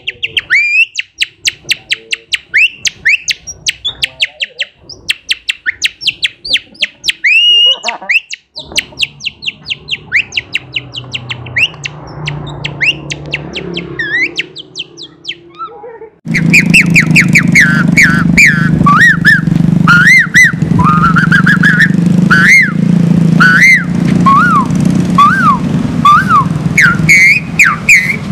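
A man imitating bird song with his mouth behind a cupped hand: rapid, high repeated chirps and trills. About halfway through, a different man takes over, whistling bird-like calls through his fingers, slower notes that rise and fall, over loud steady background noise.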